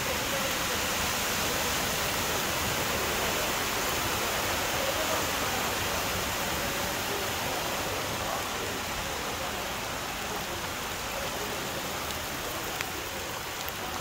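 Floodwater rushing along a street after heavy rain, a steady, even rush of water.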